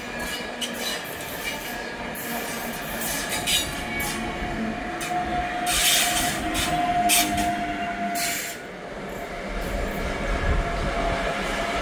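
Train running through a station, a steady rumble and clatter, with a thin squeal in the middle and several short hissing bursts.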